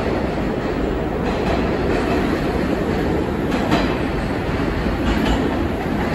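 New York City subway A train pulling out of the station and running off into the tunnel: a steady rumble of wheels on rail with a few sharp clacks at rail joints, the loudest about three and a half seconds in.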